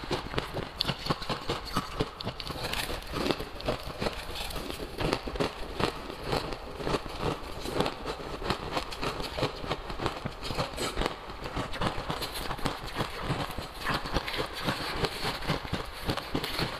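Crushed ice being chewed: a dense, irregular crackle of many small crunches, with a metal spoon scooping and scraping ice in a plastic jug.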